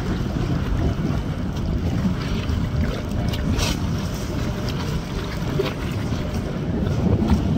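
Wind buffeting the microphone: a steady, loud low rumble with no clear tone in it, and a few faint clicks in the upper range.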